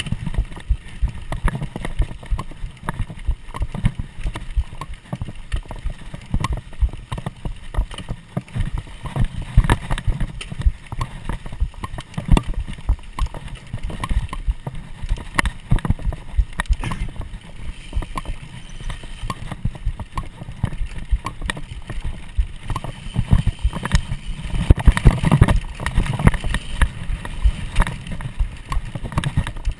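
Mountain bike ridden fast over bumpy dirt singletrack, picked up by a camera strapped to the rider: a dense, irregular rattle of sharp knocks as the bike and camera jolt over the ground, over a low rumble of tyres and movement.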